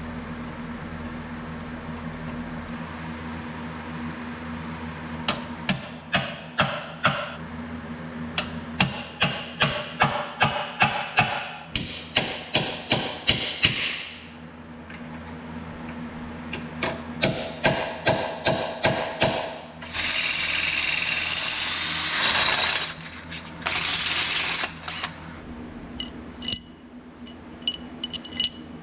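Workshop tool noise over a steady low hum: runs of quick, sharp repeated clicks and knocks, then two loud bursts of steady noise, each about two seconds long.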